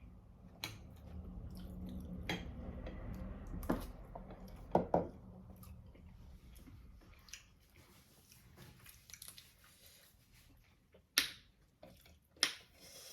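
Eating noises at a mukbang meal: chewing and smacking, with scattered clicks and clinks of plates and utensils. The loudest are a few sharp knocks about five seconds in and twice near the end.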